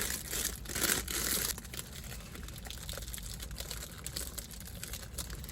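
Bakery pastry bag crinkling as buns are handled and passed over, loudest for the first second and a half, then softer, lighter rustling.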